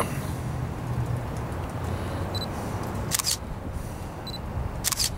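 Single-lens reflex camera shutter firing three times, a few seconds apart, as the photographer shoots the posing model, over a steady street background.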